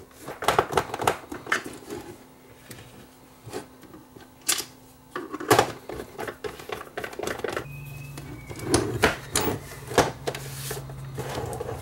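Plastic clicks and knocks as the back cover is pressed onto the housing of an LED scrolling message sign and the sign is handled on a workbench. About eight seconds in, a brief high beep sounds and a low steady hum starts.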